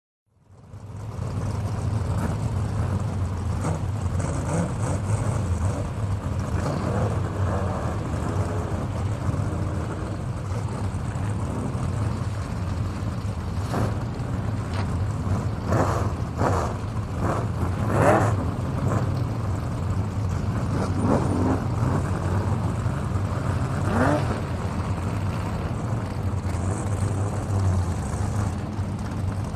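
Motor-race sound effect: car engines drone steadily, and several cars rev and sweep past in quick succession around the middle and once more later on.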